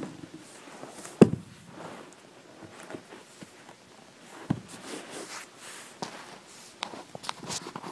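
Building materials being handled: a sharp knock about a second in, then scattered softer knocks, taps and rustles.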